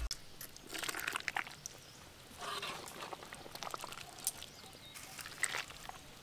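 Metal ladle scooping chicken curry from a wok and tipping it into a stainless steel bowl: a few separate soft scrapes, clinks and wet pours.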